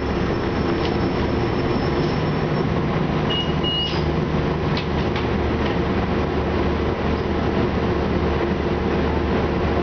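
Detroit Diesel Series 50 engine and Allison B400R transmission of an Orion VII city bus running, a steady drone with a low rumble, heard from inside the passenger cabin. A short two-part electronic beep sounds a few seconds in.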